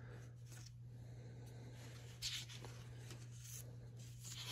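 Pages of an old paper handbook being turned, a faint rustle with a slightly louder swell about two seconds in, over a steady low hum.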